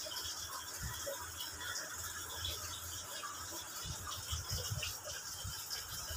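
Low, steady background hiss, with a run of low bumps and rumbles in the second half as the phone is moved around.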